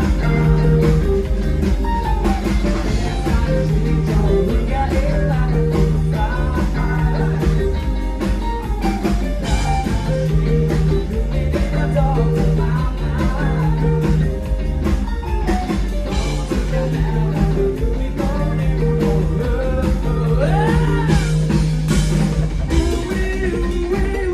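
Live band music with a singer over electric guitar, bass and drums, keeping a steady beat throughout.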